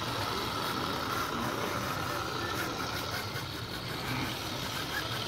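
Scale RC Mercedes-Benz Actros 4x4 tipper truck running as it drives slowly over dirt and leaves, a steady truck-engine-like sound with a faint whine.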